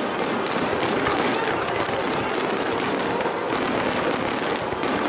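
Fireworks display: a dense barrage of many bursts overlapping in quick succession, a continuous rapid crackling and popping.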